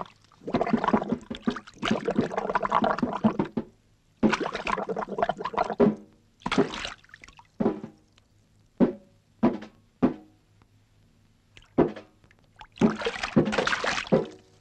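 Comic cartoon sound effects: long rushing bursts near the start and again near the end, with a string of single short, sharp hits in between.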